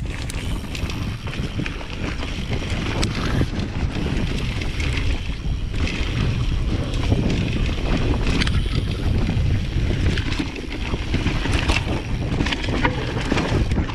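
Wind rushing over the camera microphone as a mountain bike descends a dirt trail, its Maxxis DHF tyres rolling on the dirt and the bike rattling and clicking over bumps.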